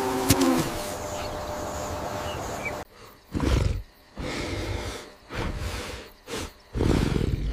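A steady background hiss for about three seconds. Then a large boar grunts and snorts in about five heavy, low, rough bursts with short pauses between them.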